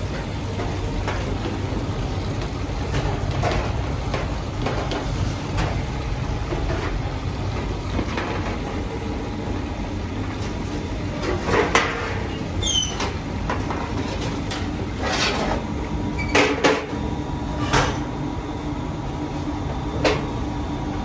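Bakery work sounds: a steady low machine rumble, with a few sharp knocks and clatters of metal baking trays being handled, mostly in the second half.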